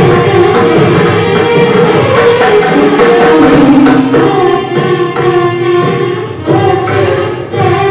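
Carnatic violin duet accompanied by mridangam: two violins play melodic phrases together over the drum's strokes. The violins grow quieter in the second half, leaving the drum strokes more prominent.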